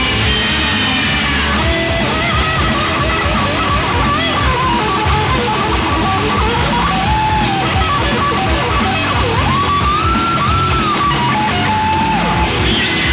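Heavy metal band playing live, with an electric guitar lead line of held and bent notes over the full band.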